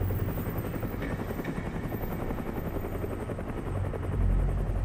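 Helicopter sound effect: the main rotor chopping rapidly and steadily over a low engine rumble, growing briefly louder near the end.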